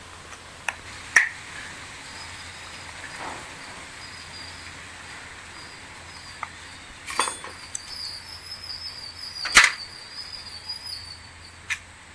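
Sharp metallic clicks and taps, a few seconds apart, as a screwdriver prises the brush holder out of a scooter starter motor's end cap; the loudest snap comes near the end. A high chirping runs in the background through the second half.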